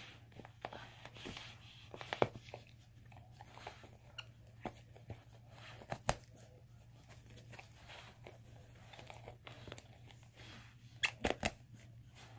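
A dog chewing and tearing at a toy: scattered crunches and crinkles with a few sharper snaps, several close together near the end, as she works a hole into it.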